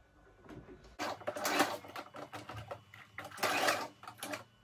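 Electric sewing machine stitching jersey fabric in two runs, the first starting about a second in and the second near the end, with a short pause between. This is the forward-and-reverse pass of a backstitch that locks the end of the seam.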